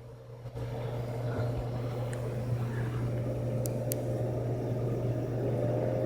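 Computer and power-supply fans running steadily with a low hum, getting louder about half a second in, with a couple of faint ticks. No coil whine or buzzing is heard from the power supply, whose coils have been glued to stop it.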